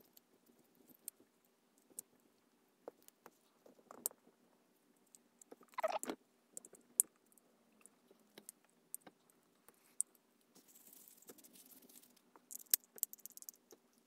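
Scattered light clicks and small rattles of a partly disassembled Daiso spinning reel being handled and turned: plastic body, handle and metal bail wire knocking in the hands. A louder brief sound comes about six seconds in, and a soft rustle a little past the middle.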